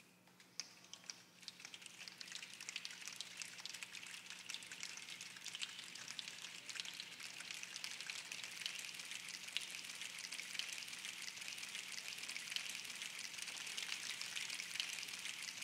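A large choir snapping their fingers to imitate rain: a few scattered snaps at first, thickening into a dense, rain-like patter that grows steadily louder.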